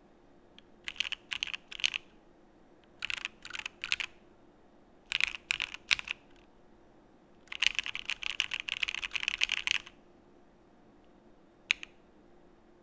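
Typing on a Geonworks Frog mechanical keyboard with lubed Alpaca v2 linear switches in an aluminum plate: short runs of keystrokes with pauses between them, a longer fast run past the middle, and a single keystroke near the end.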